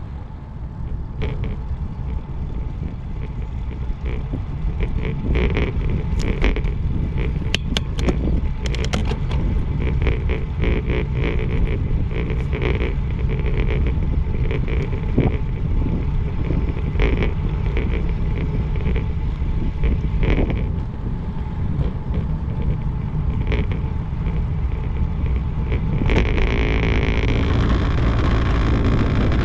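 Wind buffeting the microphone of a camera on a moving bicycle, over steady tyre noise, with scattered clicks and rattles. About three seconds from the end the rolling noise changes as the bike goes onto wooden boardwalk planks.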